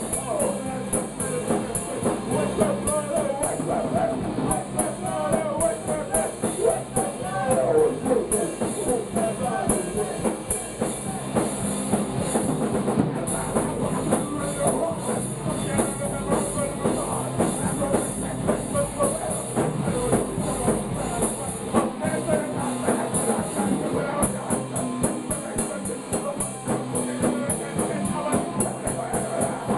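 Punk rock band playing live in a small room: electric guitar and drums with fast, even cymbal strokes, and a singer at a handheld microphone, making one loud, continuous wall of noise.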